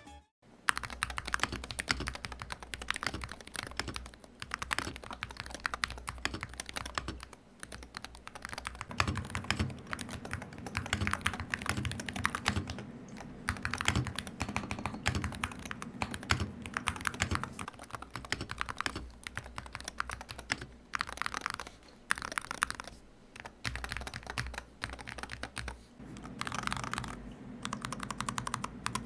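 Typing on an Akko MOD007B HE PC Santorini, a Hall Effect magnetic-switch keyboard in its stock state before the stabilizers are lubed: a fast, continuous run of key clacks.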